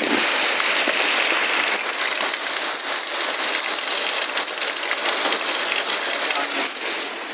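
Heavy downpour of rain: a dense, steady hiss of rain falling on roofs and the ground, easing slightly near the end.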